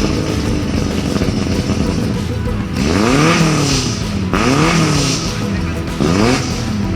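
Off-road jeep engine revved again and again over a steady engine drone, each rev rising quickly and sinking back, about three times from roughly three seconds in.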